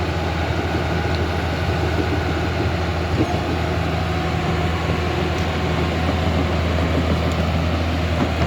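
Steady mechanical whirring and humming of a Huina 1551 remote-control excavator's electric motors and gearboxes at work, with one brief click about three seconds in.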